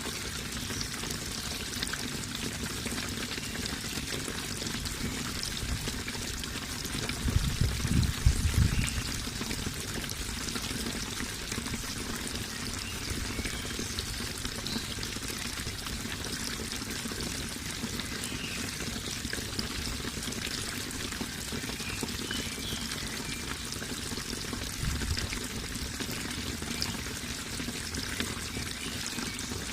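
Running water pouring and splashing steadily, as from a small waterfall or stream. A brief low rumble about eight seconds in, and a fainter one near the end.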